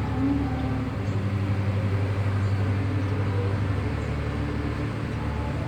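Steady low engine hum with an even, unbroken drone throughout.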